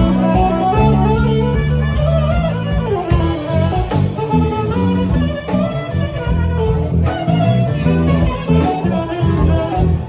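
Band music from a jam session: guitar playing over bass notes and a steady drum beat.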